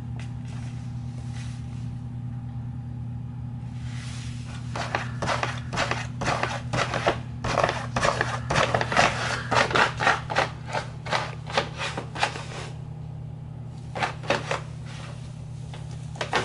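Paper grocery bag and the newspaper circulars inside it rustling and crinkling as a cat shifts about in it. The rustling starts about four seconds in and runs thick until a pause near the end, then comes briefly once more, over a steady low hum.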